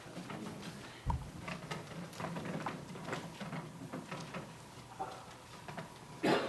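Light scattered knocks and shuffling of people moving about in a church, over a faint steady low hum. There is a dull thump about a second in and a louder, sharper knock near the end.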